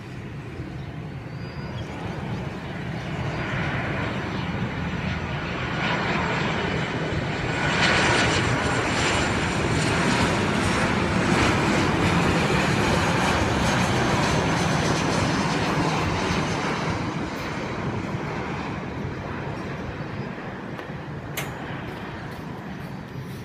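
Boeing 737-800's CFM56-7B turbofan engines on final approach. The rushing engine noise grows as the jet nears, is loudest about halfway through as it passes close, then fades as it moves away, with a faint whine heard as it approaches.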